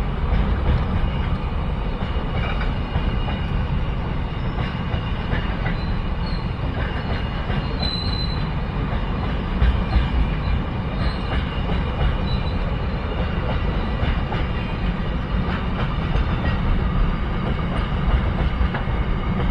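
Loaded double-stack container wagons of a freight train rolling past close by: a steady heavy rumble with wheels clattering over the rail joints, and a brief high wheel squeal about eight seconds in.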